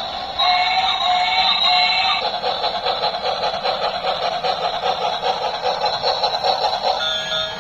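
Tinny electronic sounds from a toy's small speaker: a short synthesized melody, then a fast pulsing chatter, changing to steady electronic tones near the end.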